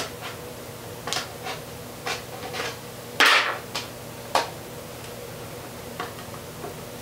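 Small cardboard processor box being cut open with a hand tool and handled: a string of short taps and scrapes, the loudest a tearing scrape a little over three seconds in and another sharp one about a second later.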